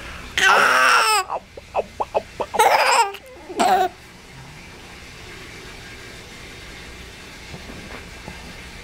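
Baby laughing: a long high-pitched squealing laugh, a quick run of short laughs, then two more squeals, all within the first four seconds; after that only a steady low hiss.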